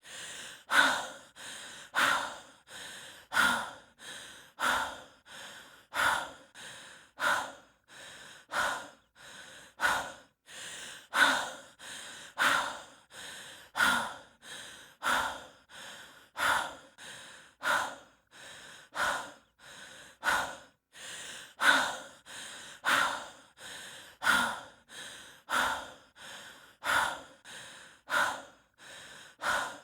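A hiker breathing heavily and fast, out of breath from exertion. The breaths come in an even rhythm of about one every 1.3 seconds, each with a softer part and a louder, sharper part.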